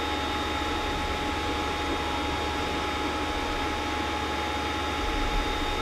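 Creality CR-10S Pro 3D printer running mid-print: a steady hum of fans with a low drone and a few faint, even whining tones.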